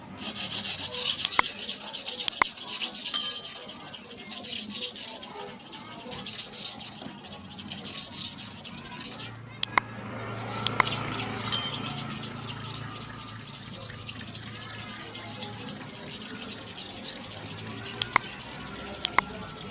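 Metal hair-clipper blade being sharpened against an abrasive surface: a steady high rasping grind that stops for about a second midway, then resumes.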